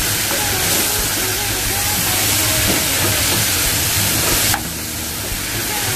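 Chicken pieces sizzling in hot oil in a pot while being stirred with a wooden spatula: a steady hiss that dips suddenly about four and a half seconds in, then picks up again.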